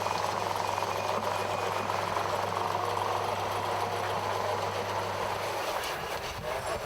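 An engine running steadily; its low hum drops away near the end.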